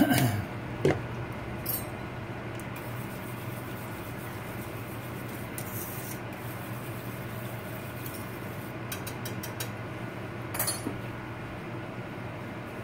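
Thick cream gravy being stirred by hand in a stainless steel skillet: a continuous rubbing and scraping of the utensil against the pan, with scattered light metallic clicks and a short run of them about nine to ten seconds in.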